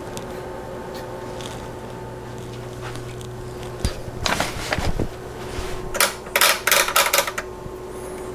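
Steady hum from a running Tektronix 485 oscilloscope, with a few sharp clicks about four seconds in and a quick run of loud clicks and clatter about six to seven seconds in as its front-panel switches and controls are worked.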